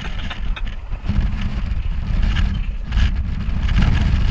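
Open-back tour truck driving over a rough dirt track: a steady low rumble of engine, tyres and wind on the microphone, with a few brief knocks from the jolting ride.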